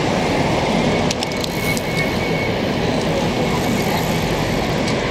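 Heavy road traffic passing close: a black taxi and other vehicles, a steady rush of engine and tyre noise, with a few sharp clicks about a second in.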